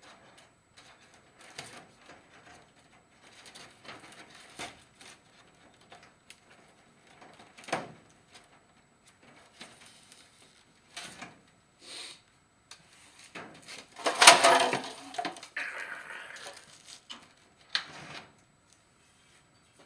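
Chicken wire being bent and pressed by hand against foam blocks: scattered light scrapes, rustles and small clicks, with one louder crinkling burst about two-thirds of the way in.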